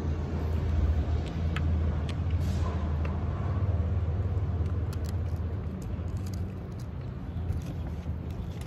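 Low rumble of a bus engine running on the street, easing off after about five seconds as it pulls away, with a few light clicks over it.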